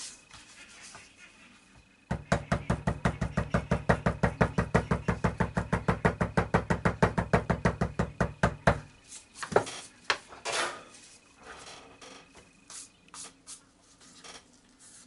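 A leather stamping tool struck by a yellow-headed mallet, in a quick, even run of taps about seven a second that stops about nine seconds in. A few lighter knocks and some handling of the leather follow.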